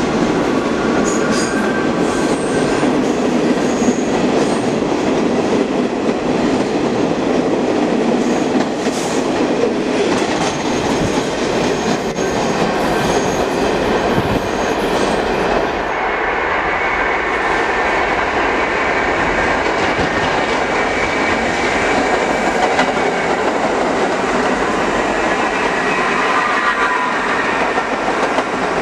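A train running past, with the steady rumble and clatter of wheels on rails and a thin high wheel squeal at times. The sound shifts abruptly a little past halfway.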